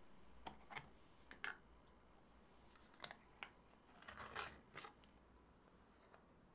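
Faint clicks and crinkling as the plastic lid of a cream cheese tub is taken off and its foil seal is peeled back. There are several short clicks in the first three seconds and a longer crinkly rustle about four seconds in.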